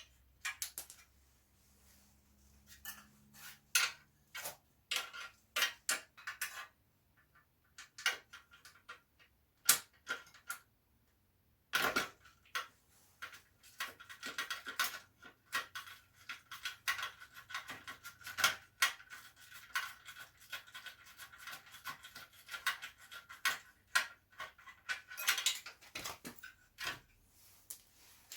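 Metal clicks and clinks of hand tools and bolts as the front mudguard's 10 mm bolts are undone and the mudguard is worked free: scattered sharp clicks at first, then a denser run of clicking from about halfway through.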